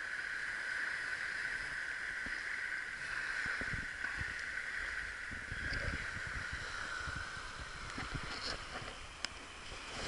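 Shallow water washing gently along the shore of a sand spit, a steady hiss, with low gusts of wind on the microphone.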